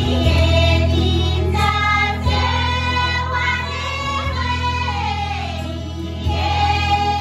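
A group of women singing together as a choir, several voices on the same melody, over a steady low hum.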